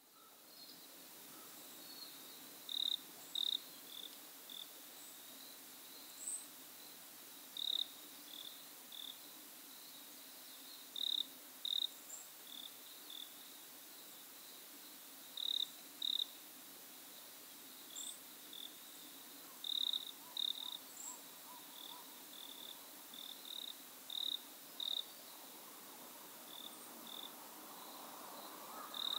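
Insects chirping in a mountain forest: short high chirps, often in pairs, repeating every few seconds over a faint steady hiss.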